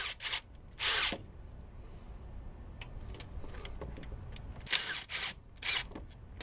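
A tool backing out the water pump's 10 mm bolts in about six short bursts, two or three near the start and three more about five seconds in.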